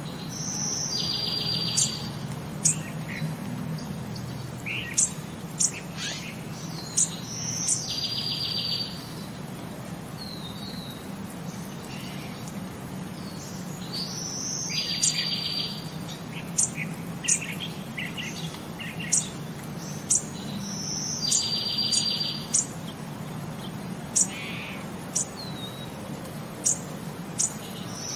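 Birdsong: short high chirps and a buzzy trill that repeats about every seven seconds, like a looped recording, over a low steady hum.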